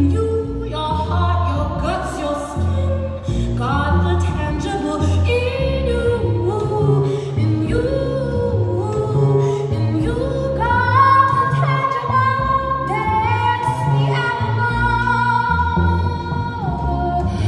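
A woman singing a flowing melody while accompanying herself on upright double bass, with a steady line of low bass notes beneath the voice.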